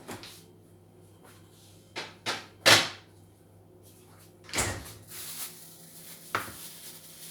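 Several sharp kitchen knocks and clunks, a cupboard or door shutting among them, the loudest about three seconds in.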